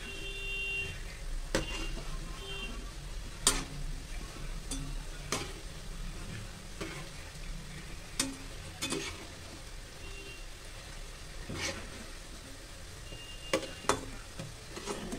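Hot oil sizzling around lauki-and-besan pakoras in a kadhai as they are lifted out with a wire-mesh skimmer and a slotted steel spoon. A steady frying hiss runs under it, with sharp metal clinks here and there as the utensils knock against the pan.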